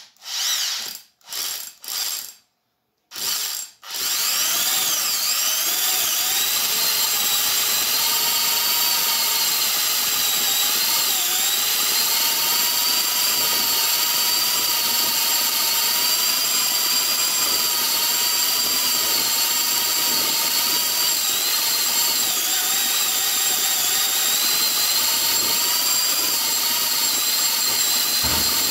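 Corded electric drill triggered in a few short bursts, then running steadily with a slightly wavering whine, spinning an empty spool on a bolt to wind fishing line off a spinning reel.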